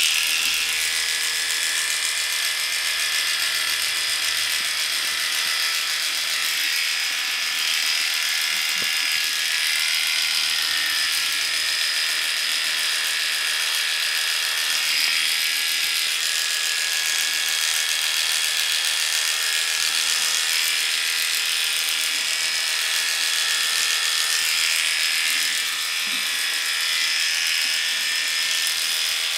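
Cordless dog-grooming clippers with a number 10 blade running steadily, shaving a poodle's curly coat on the side of the face.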